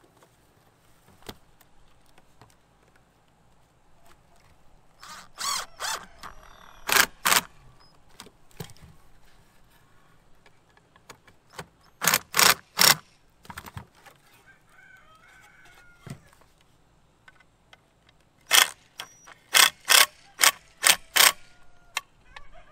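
18V cordless impact driver run in short bursts, driving wood screws into cedar picket boards. The bursts come in small groups: two pairs, then three, then a quick run of about seven near the end.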